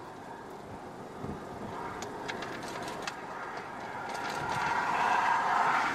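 A passing road vehicle: a rushing noise that grows steadily louder, loudest near the end, with a few faint clicks.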